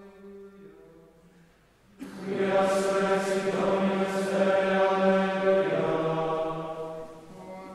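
Choir singing Latin plainchant in unison for Compline on steady held notes. A faint sung line opens, then about two seconds in the full choir comes in loudly and holds, fading near the end.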